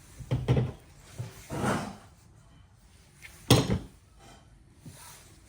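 A few sharp knocks and clatters of objects being handled and set down on a hard work surface, with a short scraping rasp in between; the loudest knock comes about three and a half seconds in.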